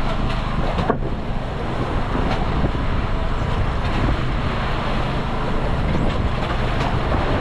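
Steady drone of a fishing boat's engine running, with wind on the microphone and a few faint knocks.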